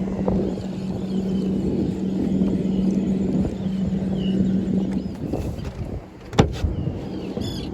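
Strong wind buffeting the microphone, with a steady engine hum underneath that stops about five seconds in. A single sharp click comes near the end.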